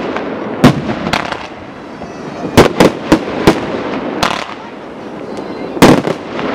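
Aerial firework shells bursting: sharp bangs in quick bunches, about a second in, around three seconds in and near the end, over a steady crackling hiss between them.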